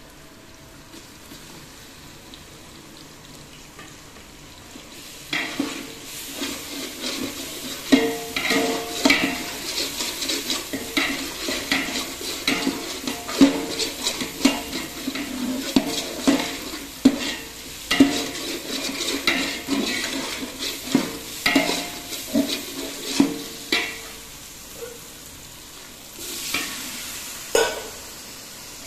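Onions and chillies frying in a large aluminium pot with a steady sizzle. From about five seconds in, a metal spatula stirs and scrapes against the pot, about one or two strokes a second, and the pot rings at the sharper strokes.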